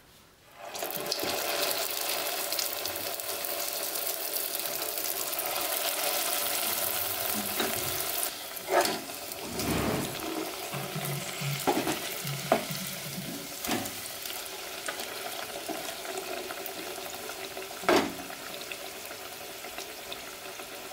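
Stuffed maida-dough balls deep-frying in hot oil in a pot: a steady sizzle that starts about a second in. A few sharp knocks stand out over it between the middle and near the end.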